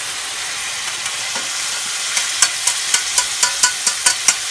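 Curry sauce poured into a hot wok of chicken and vegetables, sizzling steadily. About halfway through, a run of quick sharp taps, about four a second: the metal saucepan and spatula knocking against the wok.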